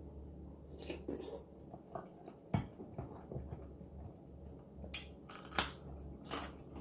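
Eating crab: scattered clicks and crunches of crab shell being picked at and bitten, with a sharp crack about two and a half seconds in and a few more near the end.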